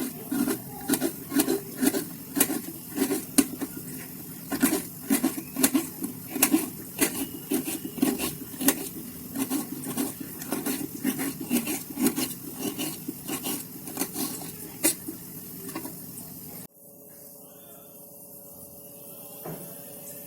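A knife chopping on a cutting board, sharp regular strikes about two to three a second, stopping abruptly about 17 seconds in.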